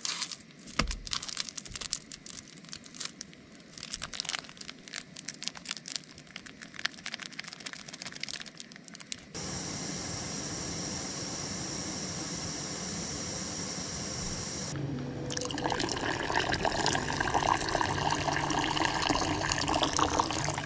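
Scattered small clicks and crackles, then from about nine seconds a steady hiss. In the last few seconds, water boiling hard in an aluminium camping pot on a gas canister stove as milk is poured in: a dense bubbling and splashing, the loudest part.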